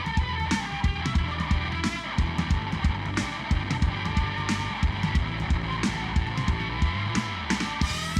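Blues-rock band playing live: electric guitar over bass and a steady, driving drum beat.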